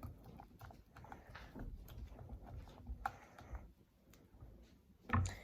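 Slime mixture of glue and contact-lens solution being stirred in a bowl: soft, irregular clicks and sticky taps, with a louder knock near the end.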